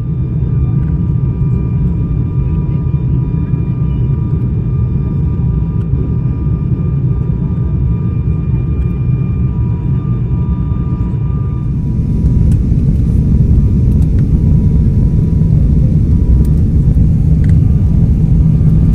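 Airliner cabin noise heard from a window seat during descent: a steady, loud low rumble of engines and airflow, with faint steady whine tones above it. About twelve seconds in it steps up, louder and brighter.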